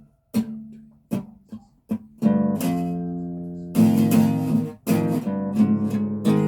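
Guitar tuned a whole step down, being strummed: a few short choked strums at first, then full chords left to ring, with a fresh loud chord just before the middle and quicker strumming near the end.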